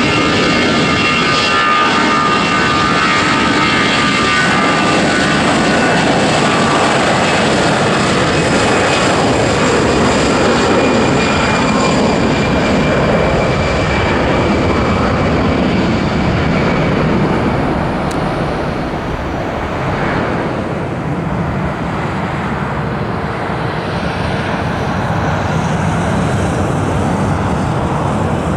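Airbus A320-214's two CFM56 turbofan engines at takeoff power: a loud, steady jet noise with a whining tone over it for the first several seconds as the airliner rolls and lifts off. The noise eases slightly after about 17 seconds as it climbs away.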